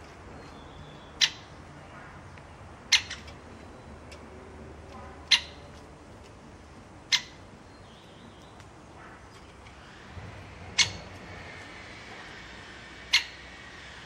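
Great spotted woodpecker giving six sharp, single 'kik' call notes, spaced one to three seconds apart.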